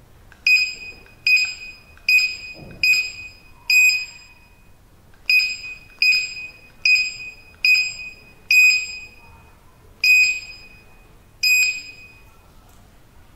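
Access-control keypad's built-in buzzer giving a short, high beep with each key press: about twelve beeps in an uneven rhythm, roughly one a second, with a longer gap near the end.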